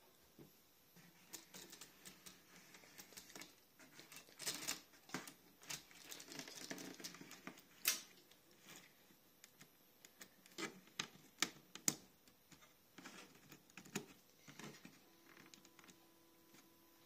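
Light clicks, taps and scraping of fingers handling a plastic model locomotive and turntable, irregular, with a busier stretch of rustling and tapping about four to eight seconds in and single sharper clicks around eight and twelve seconds.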